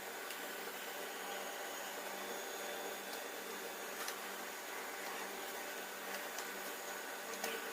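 Steady background hiss with a faint low hum, broken by a few faint clicks about four seconds in and near the end.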